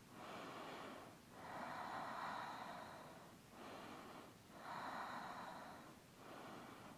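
A woman's faint, audible breathing, a slow series of about five inhales and exhales of a second or two each, through the nose.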